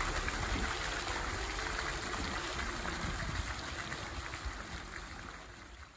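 Fountain jets splashing into a stone basin: a steady rush of falling water that fades out near the end.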